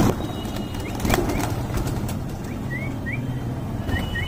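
A flock of domestic pigeons taking off together, with wings flapping and clapping. Short, high chirps repeat from about a second in, coming faster near the end.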